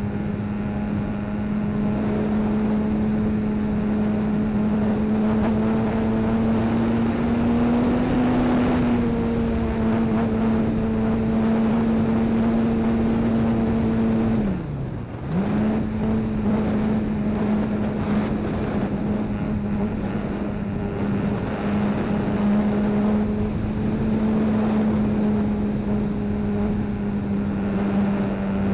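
RC foam model plane's motor and propeller running steadily in flight, heard from on board, a steady drone over rushing air. About halfway through the throttle is briefly pulled back: the pitch drops away and comes straight back up within a second.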